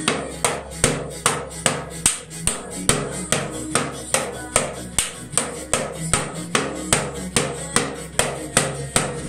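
Even drum hits, about two and a half a second, over a low bass line: drum-heavy music with a steady beat, with a toddler striking a toy drum kit and cymbal with sticks along with it.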